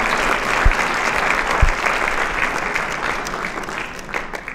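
Audience applauding, dense clapping from many people that thins and dies away near the end.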